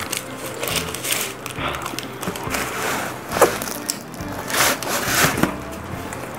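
Close-up eating sounds: food being chewed and bitten, with a run of crackly, crunchy strokes.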